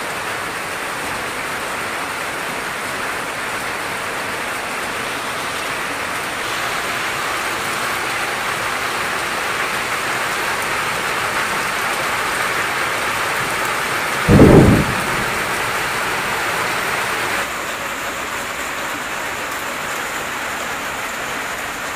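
Steady heavy rain falling on a waterlogged yard, with one loud low boom about 14 seconds in.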